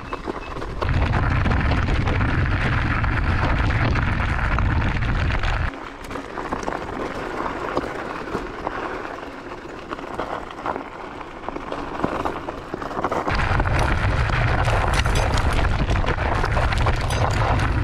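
Varla Eagle One electric scooter riding down a loose gravel trail on knobby off-road tyres: a steady rush of wind buffeting the microphone over the crunch and rattle of tyres on stones. The wind rumble drops away for several seconds in the middle, leaving the clatter of gravel and the scooter jolting over rocks, then comes back near the end.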